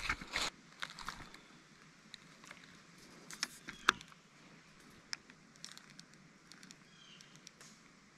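A short splash of a small sunfish dropped back into the creek, then quiet with a few scattered sharp clicks and taps. A brief high chirp comes near the end.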